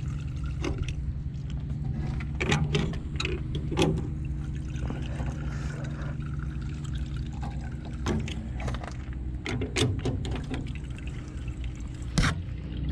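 Cessna 172's engine idling steadily, with scattered clicks and knocks over it, the loudest near the end.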